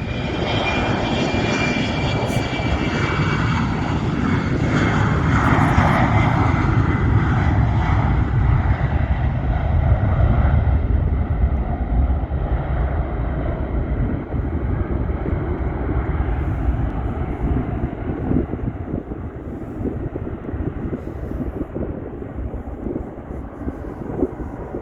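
KLM jet airliner taking off, its turbofan engines at takeoff thrust: loud engine noise with a high whine at the start, peaking about six to ten seconds in, then fading and dulling as the aircraft climbs away.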